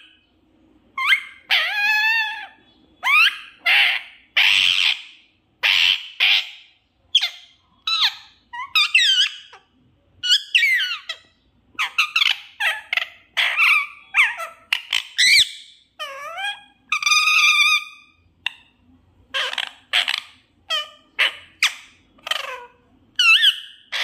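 Pet rose-ringed parakeet (desi parrot) calling and chattering: a long string of short, high, squawky calls and whistled notes that slide in pitch, more than one a second, with brief pauses between them.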